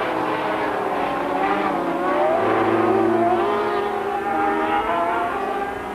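Engines of several racing sidecar outfits running hard together, their overlapping pitches rising and falling as they race past. The sound swells to its loudest about three seconds in.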